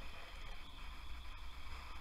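Faint scratching of a Faber-Castell Albrecht Dürer watercolour pencil colouring in small strokes on paper primed with watercolour ground, over a steady low electrical hum.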